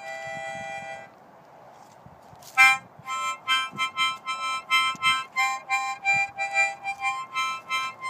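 Harmonica played: a held chord that breaks off about a second in, then after a short pause a loud blast and a run of quick, rhythmic repeated chords, about four a second.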